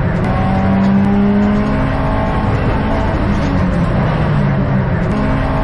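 Subaru WRX STI's turbocharged EJ20 flat-four heard inside the stripped cabin on a hot lap, pulling hard with its pitch rising slowly over the first couple of seconds.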